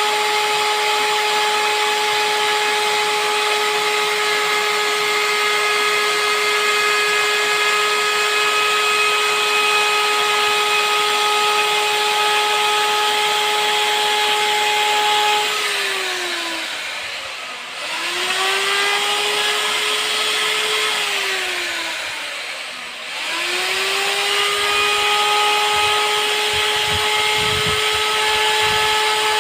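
Handheld CNC router's spindle motor running with a steady high whine. In the middle it twice drops in pitch and winds back up to speed, and a few low knocks come near the end.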